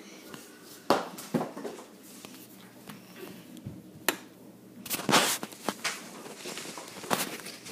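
Camera handling noise: irregular sharp knocks and rustles as the device is grabbed and moved, with a denser burst of rubbing and clatter about five seconds in.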